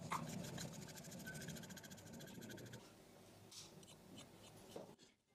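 A small brush scrubbing a watch dial in a dish of cleaning liquid, with quick, even strokes; after about three seconds it gives way to softer, scattered rubbing.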